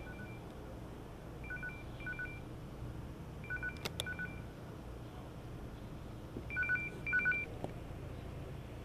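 Electronic beeping: short two-tone beeps in pairs, repeating every two to three seconds. Two sharp clicks sound about four seconds in.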